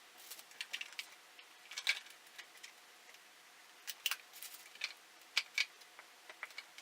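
Hands working at a small product box to get it open: irregular taps, clicks and short crinkly scrapes of the packaging, with slight pauses between them.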